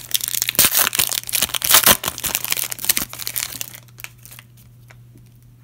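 Wrapper of a trading card pack being torn open and crumpled, a dense loud crinkling for about three seconds that dies down to a few faint crackles.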